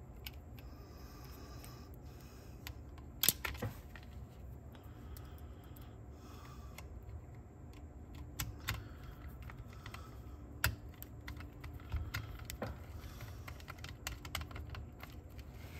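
Screwdriver turning small mounting screws into a cassette deck's metal chassis: faint, irregular clicks and light scrapes, with a sharper click about three seconds in and another about eleven seconds in.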